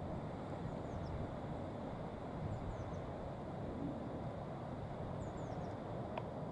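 Steady low outdoor background rumble, with faint high-pitched bird chirps a few times.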